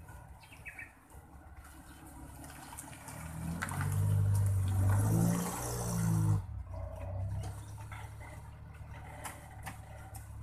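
A small truck's engine drawing up close by, rising to its loudest in the middle and then dropping off abruptly, over a low steady hum and the flow of ditch water.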